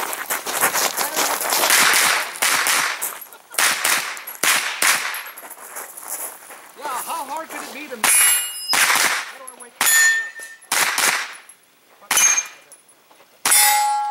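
Pistol-caliber carbine firing shot after shot: a fast string at first, then single shots about a second apart. Several later hits set steel targets ringing with a clang.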